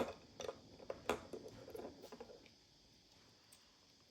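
Small plastic building bricks being handled and pressed together: a few light clicks and rustles in the first two seconds, then quiet.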